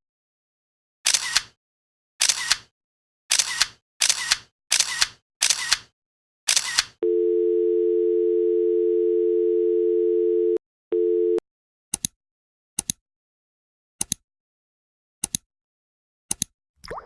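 About seven short, sharp bursts of noise, followed by a telephone dial-tone sound effect: two steady low tones together, held for about three and a half seconds, breaking off briefly and returning for half a second. A few short clicks come after.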